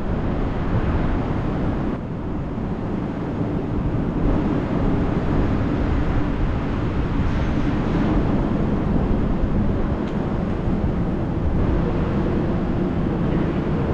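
Steady low rumbling noise with a faint hum, and no distinct events.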